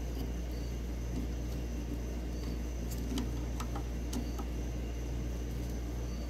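Steady low background hum, with a few faint light clicks about halfway through.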